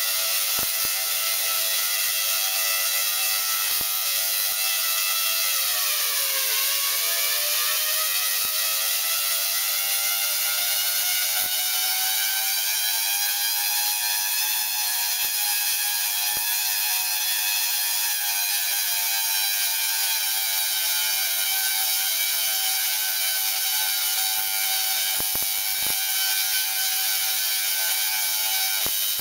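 Tesla coil firing continuously, its sparks streaming from the topload as a loud, steady, pitched buzz. The pitch dips about six seconds in, then slowly climbs back and levels off.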